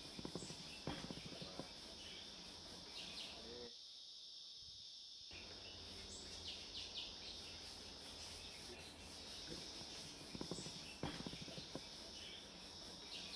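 Faint workbench handling sounds: a tri-square being shifted and set against a scrap-board drilling template and a marker pen drawing on it, with a few light knocks and scratches about a second in and again near the end, over a steady high-pitched hiss.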